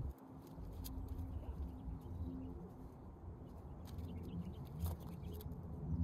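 Faint outdoor background: a steady low rumble with scattered faint clicks and a few faint short bird chirps in the second half.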